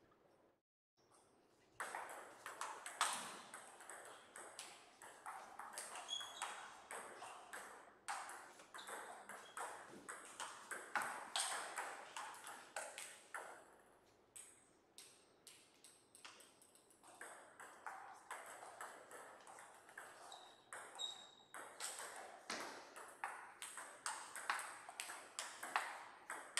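Table tennis rallies, starting about two seconds in: a celluloid-type table tennis ball clicking in quick alternation off the rubber-faced bats and the table top. The clicks come in runs, with short pauses between points.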